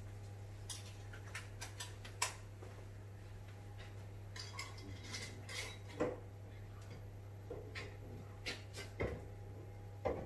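Glass jars of washed yeast being handled on a kitchen worktop: scattered clinks and knocks, the loudest about two, six, nine and ten seconds in, over a steady low hum.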